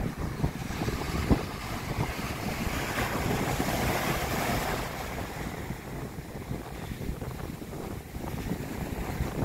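Ocean surf breaking and washing up a sandy beach, with wind buffeting the microphone. The hiss of a breaking wave swells about two seconds in and dies away around five seconds.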